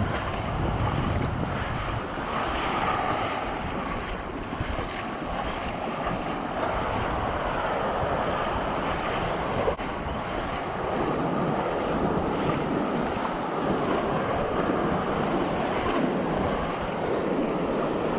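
Surf washing and breaking steadily, with wind buffeting the microphone, heaviest in the first couple of seconds.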